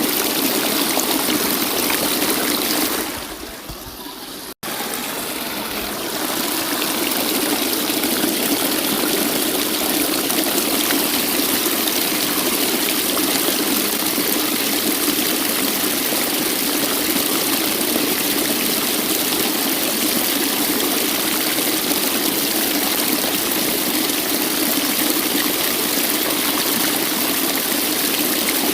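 Waterfall rushing steadily, a dense even roar of falling water. About three seconds in it fades down briefly, cuts out for an instant, then comes back to full strength, like a splice or loop point in the recording.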